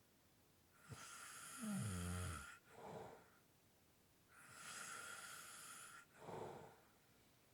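A person snoring lightly with slow, heavy breaths: two breath cycles. The first, about a second in, carries a low rattling snore. The second, a few seconds later, is only breathy.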